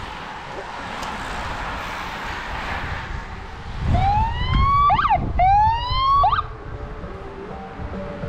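A vehicle siren gives two short whoops about halfway through, each rising in pitch for about a second and then dropping off sharply, over a steady rushing noise.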